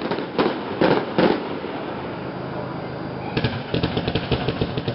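Fireworks going off: three loud bangs in the first second and a half, then a fast run of crackles from about three and a half seconds in.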